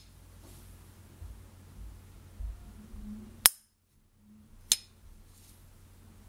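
S. T. Dupont Ligne 1 silver-plated lighter's hinged lid clicking shut, then flicked open about a second later with a sharp, ringing metallic ping. Soft handling rustle from the gloved fingers comes before the strokes.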